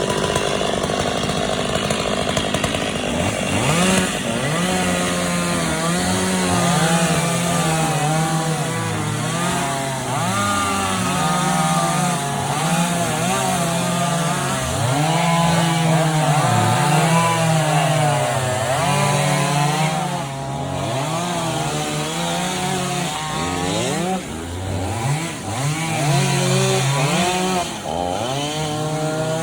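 Chainsaw cutting a fallen tree, its engine revving up and dropping in pitch over and over as it works through the wood.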